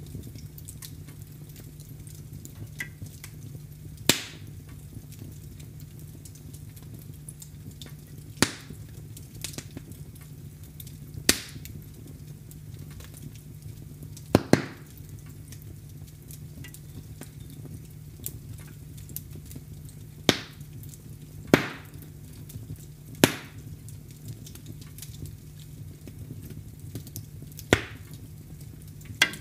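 Fire crackling in a fireplace: a steady low background of burning with sharp, loud pops every few seconds, about ten in all, two of them in quick succession about halfway through.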